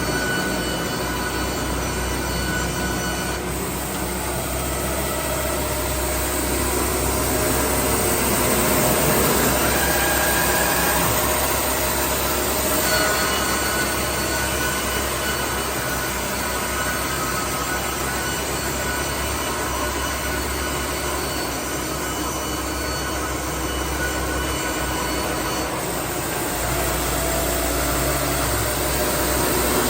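Baker band sawmill running and cutting through a cant: a steady machine drone under a high blade whine, changing in tone a few seconds in and again near the end.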